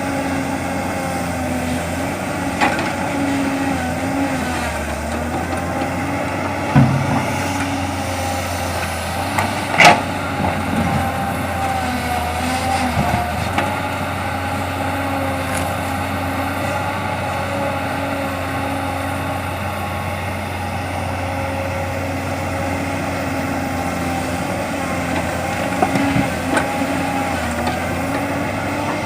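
Excavator's diesel engine running steadily under load, its pitch wavering as it works, with a few sharp knocks; the loudest comes about ten seconds in.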